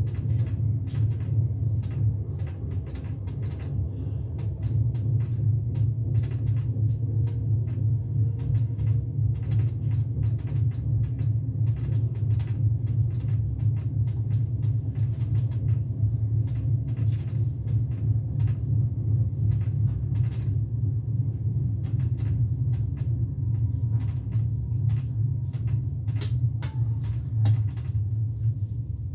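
Steady low running rumble of a Zürich S-Bahn double-deck train, heard inside the control car's driver's cab as it rolls slowly along a station platform, with many small clicks and knocks over it and one brief sharp sound near the end.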